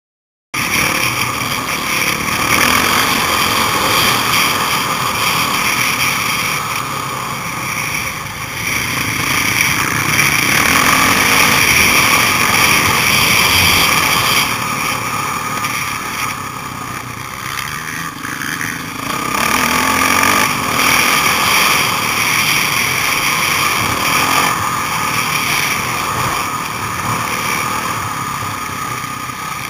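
Motocross dirt bike engine running hard at high revs through a lap of a dirt track, its loudness rising and falling with the throttle. It cuts in abruptly about half a second in.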